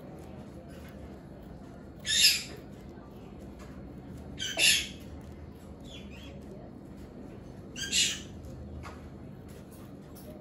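Three short, loud rasping scrapes, a couple of seconds apart, from stock foam being handled, cut and pushed into a mechanical keyboard case.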